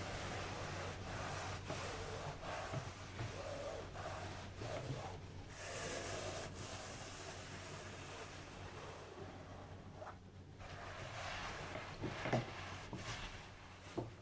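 Hands rubbing and pressing over a person's back during a chiropractic-style adjustment, with breaths and faint clicks, and two short sharp pops near the end.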